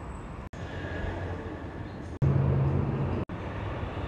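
Trucks' engines running as they drive by on a street, heard in short clips spliced together that cut off abruptly three times. A delivery van is heard first and a garbage truck near the end. The loudest clip, about two seconds in, is a heavy low engine hum.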